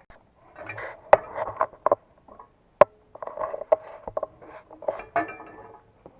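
Irregular metallic clanking and scraping of steel track parts and tools being handled, with two sharp ringing metal strikes, about a second in and just before three seconds.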